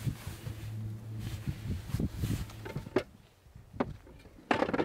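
Gear and dishes being handled and stowed in the open rear cargo area of a Jeep: a few soft ticks over a low steady hum, then scattered sharp knocks and clunks, the loudest cluster near the end.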